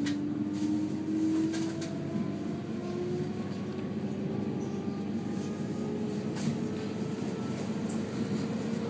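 JR 719 series electric train accelerating away from a station, heard from inside the passenger car: the motor whine rises steadily in pitch over a steady low rumble, with a few sharp clicks.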